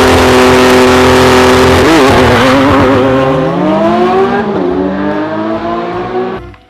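Car engine sound revving: a steady engine note that climbs in pitch about three seconds in and then drops, starting and cutting off suddenly.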